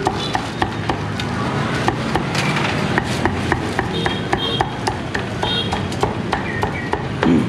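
Cleaver chopping roast pork on a chopping block: a run of sharp, uneven knocks, about two a second.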